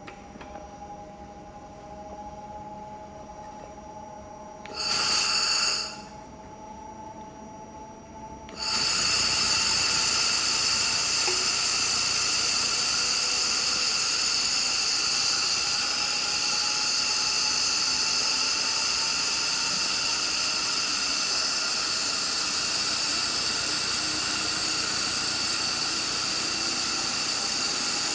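2500 W handheld laser welder welding 7.9 mm mild steel: a short loud hissing burst about five seconds in, then from about nine seconds a steady loud hiss of the weld that holds on. Before the welding, only a faint machine hum.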